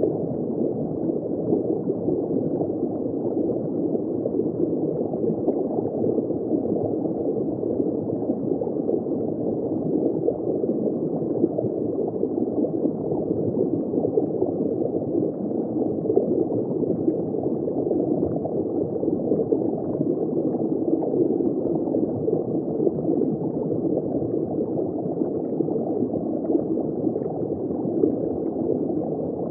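Steady, unbroken gurgling and bubbling of water circulating in a saltwater reef aquarium.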